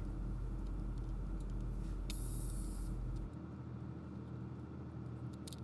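Steady low electrical hum, with a brief hiss about two seconds in and a few faint light clicks near the end.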